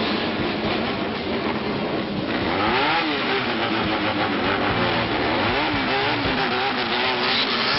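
Vehicle engines at a bosozoku gathering revving up and down in quick repeated throttle blips, starting about two seconds in over a steady din.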